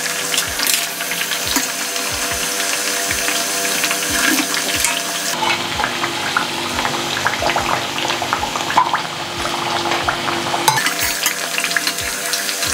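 Thattai vadai (flat rice-flour fritters with chana dal and peanuts) deep-frying in hot oil in a stainless steel pan: a steady sizzle with dense crackling and popping.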